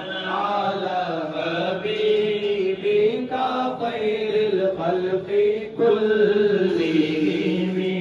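A man's voice chanting devotional poetry through a microphone and sound system, in long, melodic, held phrases over a steady low drone.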